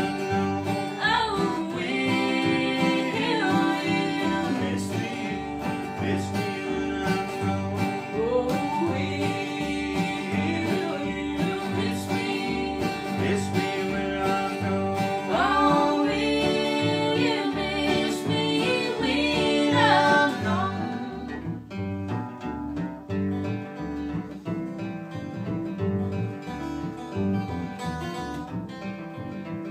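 Bluegrass music on acoustic guitar and upright double bass, the bass plucking a steady pulse under the guitar. A voice sings over them until about two-thirds of the way through, then guitar and bass carry on alone.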